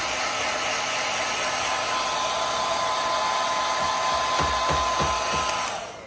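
Hair dryer blowing steadily with a thin, steady whine, with a few low thumps about four and a half seconds in; it cuts off just before the end.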